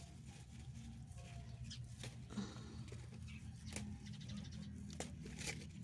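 Faint outdoor background: a low steady hum with a few scattered clicks and taps.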